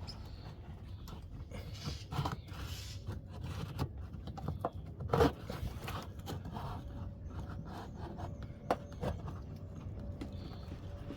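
Irregular clicks, scrapes and knocks of hand tools working on the rear air suspension spring mount, with a sharp knock about five seconds in and another near nine seconds.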